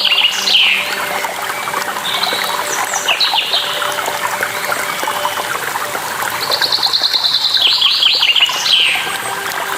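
Songbirds singing over the steady rush of a waterfall. A fast trill of repeated high notes, ending in a falling sweep, comes twice: at the very start and again from about two-thirds of the way in. Shorter chirps sound in between.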